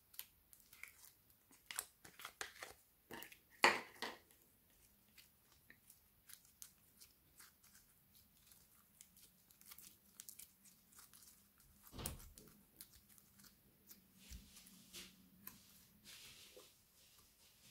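Slime being poked, squished and stretched by hand: a run of small crackling and popping clicks. They are densest in the first four seconds, sparser after that, with a soft thud about twelve seconds in.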